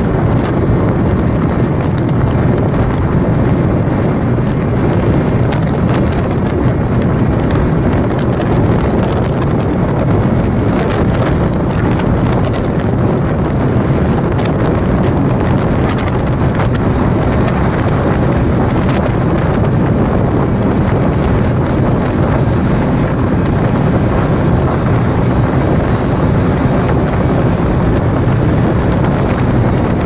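Steady wind rush on the microphone of a motorcycle riding at speed, with the engine and road noise running underneath.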